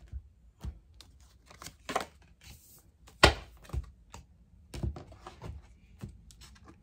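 A deck of reading cards being handled and drawn: irregular clicks and taps of cards being shuffled and set down, the loudest a sharp snap about three seconds in.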